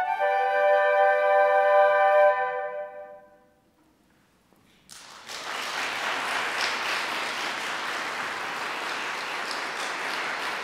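A flute ensemble holds a final sustained chord that fades away, followed by a moment of silence. Then, about five seconds in, the audience breaks into steady applause.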